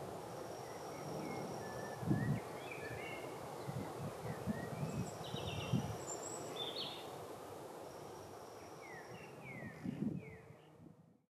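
Birds chirping and calling over a steady outdoor background hiss, with a few soft low thumps. The sound fades out just before the end.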